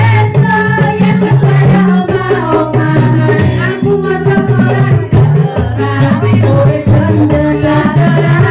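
A woman singing a pop song over electronic keyboard accompaniment, with a stepping bass line and a quick, even shaker-like beat.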